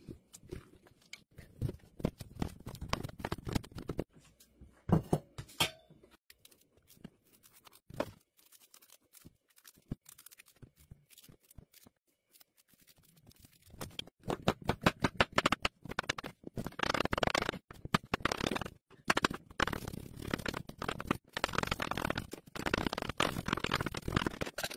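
Knife and spoon work on a raw pumpkin over a plastic cutting board: scattered scrapes and cuts with a few sharp knocks in the first part, a quiet spell, then rapid, steady chopping through the second half as the pumpkin is diced into cubes.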